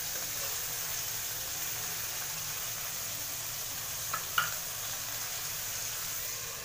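Vegetables (carrot, capsicum, onion and peas) sizzling steadily in hot oil in a metal kadhai as they stir-fry. A couple of light clicks come about four seconds in.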